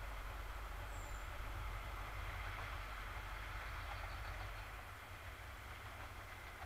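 Distant ST44 (M62-type) diesel locomotive's two-stroke V12 diesel engine running as a low steady rumble, fading as it draws away. A short high chirp sounds about a second in.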